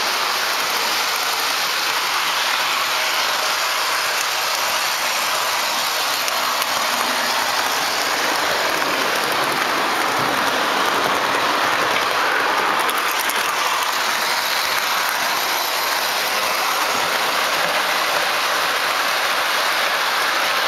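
Steady rolling rumble and clatter of an O-gauge model train running along the track: a Williams Jersey Central FM Trainmaster diesel locomotive pulling Lionel C&O hopper cars. The sound stays even throughout, with no horn.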